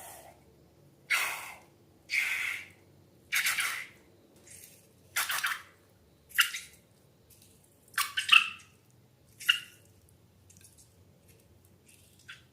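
A series of short wet squelches and plops of slime being squeezed and poured, about eight in ten seconds, a couple of them with a brief squeak near the end.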